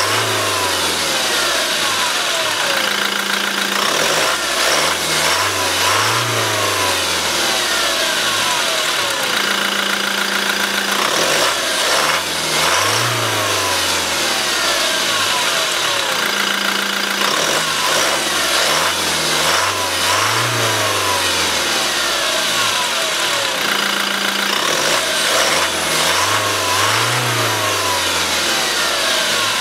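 2016 Toyota Hilux turbodiesel engine revved from idle and let fall back, five times about seven seconds apart, with a whine that falls as the revs drop.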